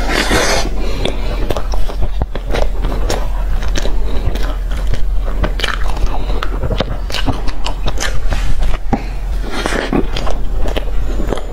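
Close-miked biting and chewing of a soft rolled egg-crepe wrap with a meat filling: irregular wet mouth clicks and smacks throughout, with a short noisy burst at the very start.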